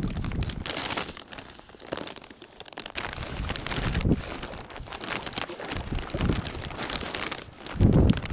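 Irregular rustling and splashing as a wet gill net is handled in the water, with a few dull thumps, the loudest near the end.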